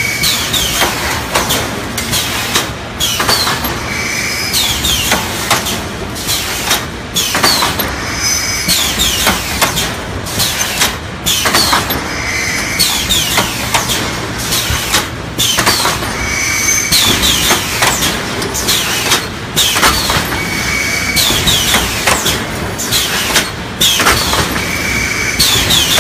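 3D EPS panel wire-mesh welding machine running: dense repeated clicks and clanks from its pneumatic welding heads and wire feed, with a low hum. A short high squeal comes back about every four seconds as the machine cycles.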